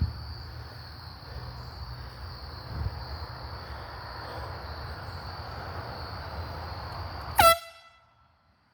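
A handheld air horn sounds one short, loud, pitched blast near the end. Before it there is a steady high insect chirring over a low rumble.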